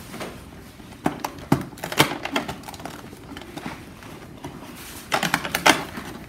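Fingers picking and scraping at a cardboard gift box while trying to get it open: a scatter of light clicks and scrapes, busier for a moment about five seconds in.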